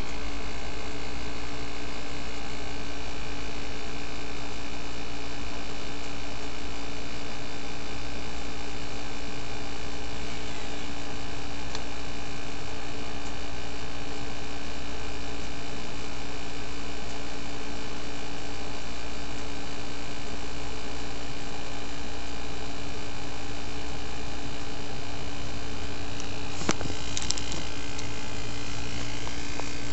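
Steady background hum with a constant tone and an even hiss, like a fan or mains hum. A brief soft knock and rustle comes near the end.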